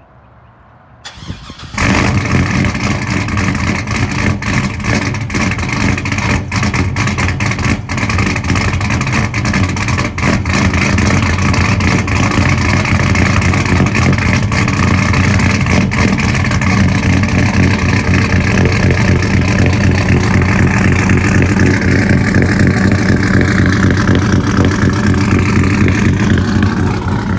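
GM LS V8 truck engine with a Brian Tooley Racing Stage 4 truck cam, cold-starting: a brief crank about a second in, then it catches at about two seconds and runs at a loud, uneven, lopey fast idle. The idle smooths out somewhat after the first several seconds, and near the end its pitch drifts down.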